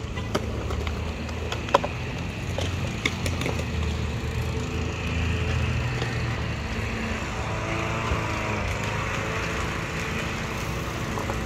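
Steady low outdoor rumble, with a few sharp knocks in the first three seconds from a child's kick scooter rolling and bumping on concrete.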